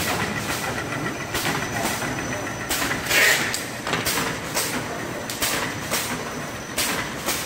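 Side-sealing plastic bag-making machine running in production: a steady mechanical clatter with short hisses roughly once a second, often in pairs, as it cycles through sealing and cutting envelope bags.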